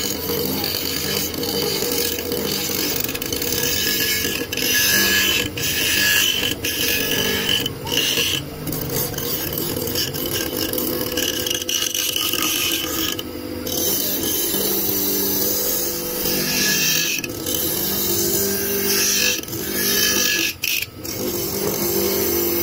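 Electric motor spinning a small abrasive wheel on its shaft while a cleaver's wooden handle is ground against it: a steady motor hum under a gritty grinding hiss that drops out briefly several times as the piece is lifted off and set back.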